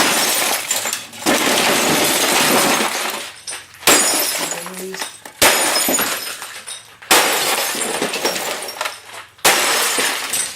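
An upside-down RCA XL100 CRT television is being smashed with about five heavy blows. Each blow brings a crash of breaking glass and tinkling shards that die away before the next.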